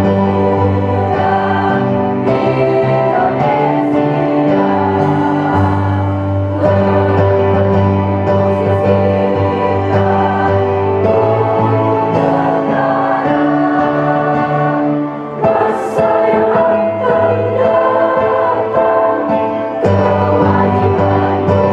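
A school choir singing a slow song in long held chords that change every second or two.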